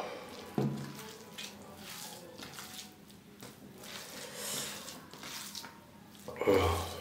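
Fingers squishing and mixing cooked rice with curry on a steel plate, giving soft wet, sticky sounds with small clicks. A single knock comes just over half a second in as the glass curry bowl is set down. A short voice sound comes near the end.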